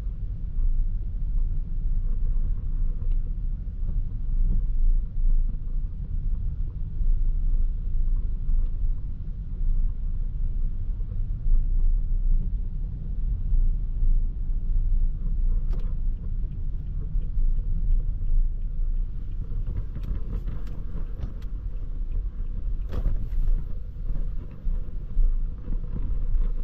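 Toyota Prius α on the move: a steady low road rumble, with a cluster of short sharp ticks near the end.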